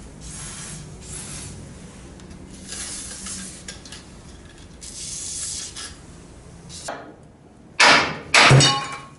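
Short hisses of an aerosol spray can, three or four spells in the first six seconds, then two loud knocks close together near the end as he works the tools against the frame.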